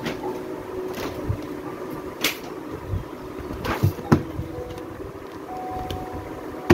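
Picture books being handled and lifted out of a cardboard box: a handful of short rustles and knocks of card and paper, about five over a few seconds, with a faint steady hum underneath.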